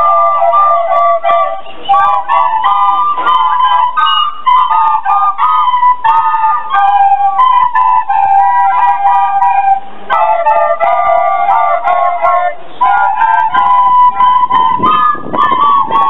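A group of plastic soprano recorders playing a melody together in short, quick notes, with brief breaks between phrases about two, ten and thirteen seconds in.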